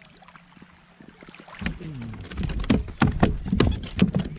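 Hooked redfish being landed beside a plastic kayak: after a quiet start, from about a second and a half in, a rapid run of sharp knocks, thuds and splashes as the thrashing fish is pulled alongside the hull and grabbed.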